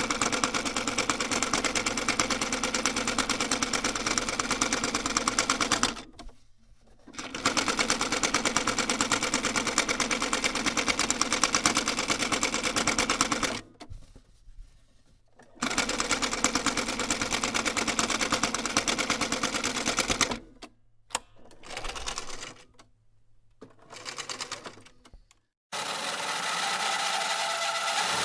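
Sewing machine stitching in fast, even runs of a few seconds, stopping and starting again several times. Near the end a different, steady engine-like running sound begins.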